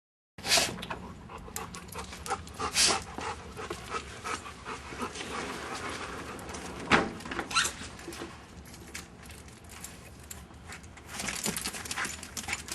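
A dog panting, mixed with irregular scuffling and a few sharper knocks; the loudest come about half a second in, near three seconds and about seven seconds in.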